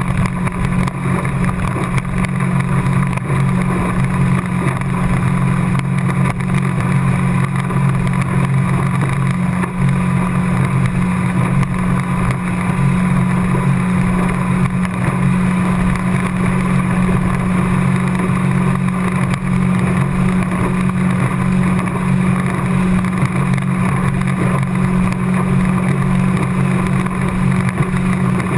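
A 50 hp outboard motor running steadily at cruising speed, pushing the boat along under way.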